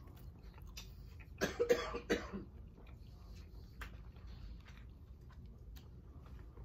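A person coughing, three quick coughs about a second and a half in, over faint room noise.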